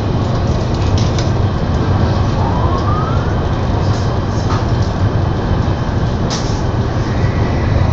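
TGV Duplex high-speed train running at speed, heard inside the passenger cabin: a loud, steady rumble with a deep hum. A brief faint rising whistle comes about two and a half seconds in, and a couple of light clicks follow later.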